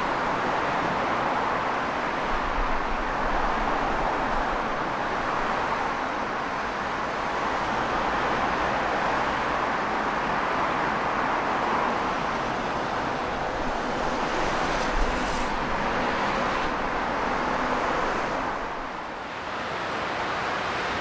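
Steady rush of road traffic, cars passing at speed, dipping briefly near the end.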